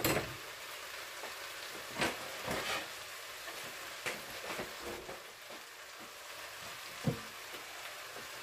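Chicken sizzling in a hot pot, a steady hiss, with several sharp knocks and clatters of kitchen utensils and cookware, the loudest at the very start, about two seconds in and about seven seconds in.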